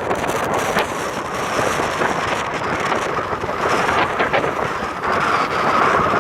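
Strong squall wind rushing and buffeting the microphone, a loud continuous roar of noise with brief gusty thumps.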